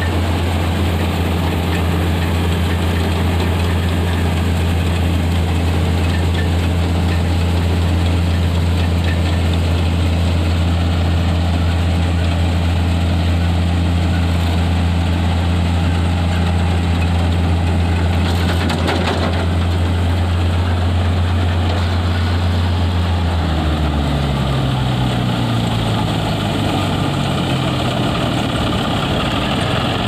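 Tractor-powered combine harvester at work in wheat: the John Deere 5310 tractor's diesel engine runs with a loud, steady low drone, mixed with the noise of the belt-driven header and threshing works. About three-quarters of the way in, the engine note shifts.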